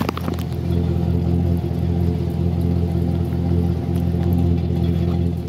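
Pickup truck's engine idling steadily, heard close at the tailpipe as an even exhaust note, with a few light clicks about the start.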